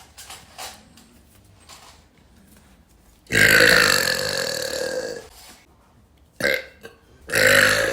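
A woman burping: one long burp about three seconds in that lasts about two seconds, a short burp about a second later, and another long burp starting near the end.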